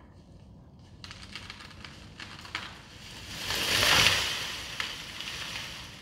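A felled tree going over: the trunk cracks and snaps in sharp pops from about a second in, then a rushing crash swells as the crown sweeps through neighbouring branches and hits the ground, loudest about four seconds in, and trails off with a few last cracks.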